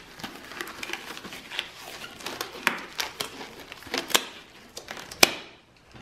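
Packaging crinkling and rustling as it is handled by gloved hands, with many sharp crackles, stopping about five and a half seconds in.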